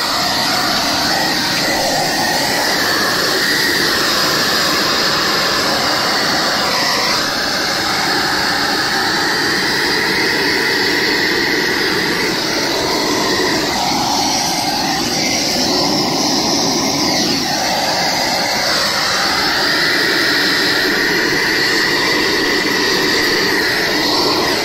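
Steady rushing roar of drying equipment blowing on a rain-soaked roof substrate to dry it out, its tone shifting slowly as it is moved.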